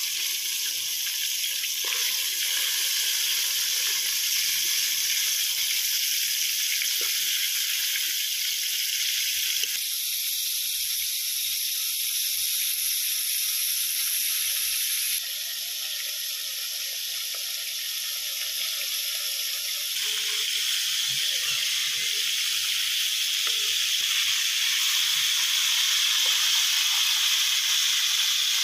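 Battered chicken pieces deep-frying in hot oil in a large metal wok: a steady sizzling hiss, which shifts abruptly in level a few times.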